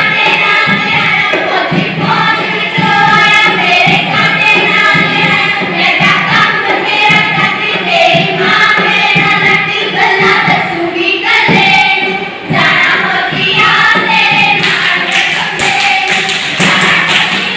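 A group of female voices singing a Punjabi folk song for giddha dance, over music with a steady beat.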